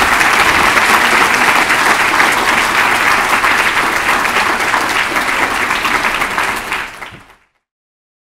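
Audience applauding steadily, a dense patter of many hands clapping, which fades away about seven seconds in and cuts to silence.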